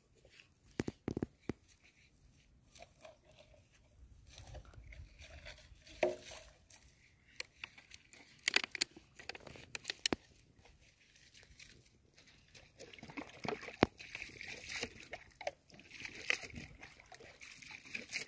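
Scattered sharp clicks and light sloshing and splashing of shallow pond water as a person wades and handles a fishing net in it.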